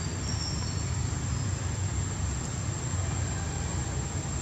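Steady outdoor background noise: a low, unsteady rumble with hiss over it. A faint, brief high chirp comes just after the start.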